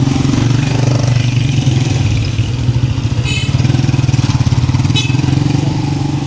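Small motorcycle engines running at low speed close by, a steady low putter. Two brief high chirps sound about three and five seconds in.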